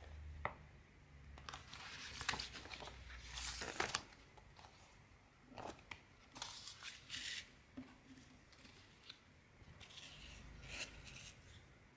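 Paper chart pages and stiff printed cross-stitch canvas being handled and flipped by hand: crisp rustling in several short bursts, with a few sharp clicks.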